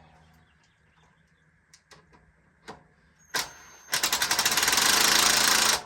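A cordless impact driver drives a screw into a Polywood rocking chair: a short blip about three and a half seconds in, then about two seconds of rapid continuous hammering. Used here where a drill would suit better.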